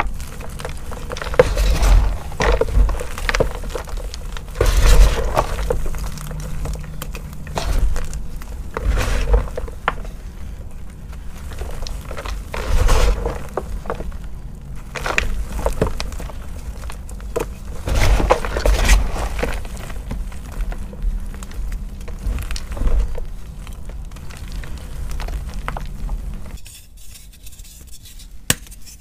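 Hands crushing and crumbling dry blocks and chunks of coloured gym chalk: gritty crunching and crackling in irregular waves of squeezes, with sharp snaps as pieces break. It goes quieter for the last couple of seconds.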